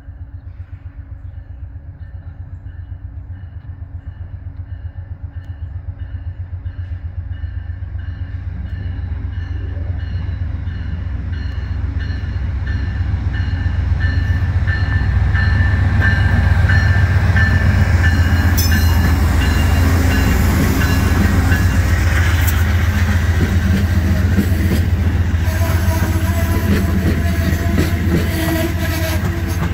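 Amtrak passenger train led by a GE P42DC diesel locomotive approaching and passing: the locomotive's engine drone grows steadily louder for about fifteen seconds, then the stainless-steel coaches rumble by with wheel and rail noise.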